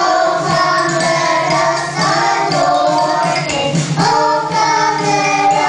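A young children's choir sings a Christmas song into handheld microphones, joined by women's voices, in sustained sung notes.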